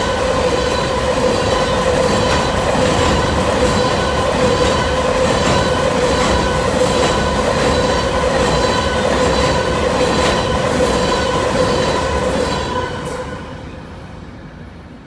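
Empty covered hopper cars of a freight train rolling past: a steady rumble with clicks from the wheels over the rail joints and a steady squealing tone from the wheels. The sound falls away about 13 seconds in as the end of the train passes.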